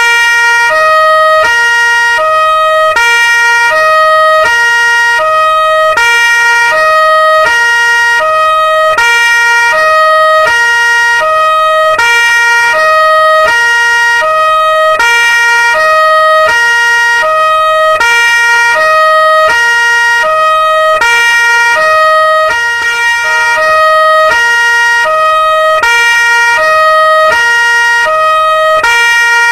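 Two-tone police siren alternating between a high and a low note, each held about half a second, repeating steadily and loudly.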